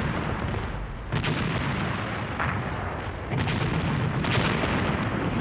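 Battle sounds of gunfire and explosions: four sharp blasts roughly a second apart over a continuous din.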